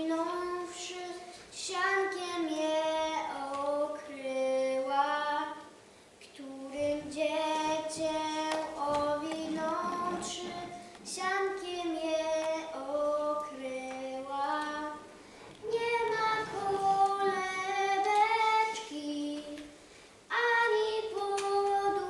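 A girl's solo voice singing a melody without accompaniment, in phrases of held notes broken by short pauses.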